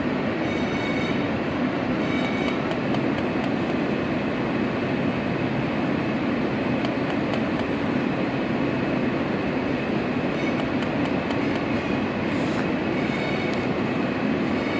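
Steady rumble inside an Alstom R160A subway car, with scattered faint clicks and a few brief thin high-pitched tones.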